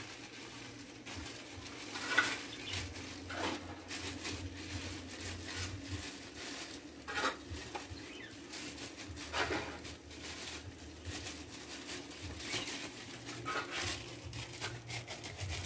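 Thin plastic bag crinkling and rustling as crushed chicharon (fried pork rinds) is shaken out of it into a plastic tray, with irregular light clicks and rustles over a low steady hum.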